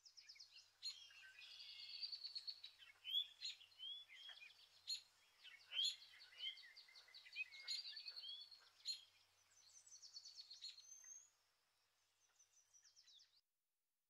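Faint birdsong, a busy mix of quick chirps, rapid trills and short whistled notes, cutting off abruptly just before the end.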